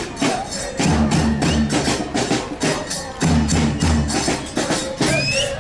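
Football supporters' percussion band playing live: bass drums keep a heavy beat under quick, regular strokes of sticks and smaller percussion.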